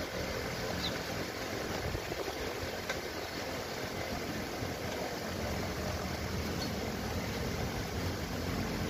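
A steady low mechanical rumble with a hiss over it, like a motor running nearby, and a few faint ticks.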